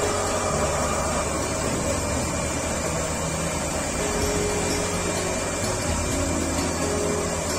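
Steady machine noise, a continuous whooshing hiss over a low hum, with the low tones shifting now and then.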